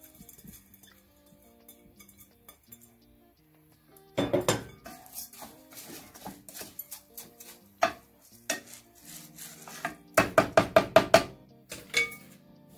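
A wooden spoon knocking and scraping in a stainless steel saucepan of dry washed rice, with a cluster of knocks about four seconds in and a quick run of about eight sharp taps near the end. Soft background music plays underneath.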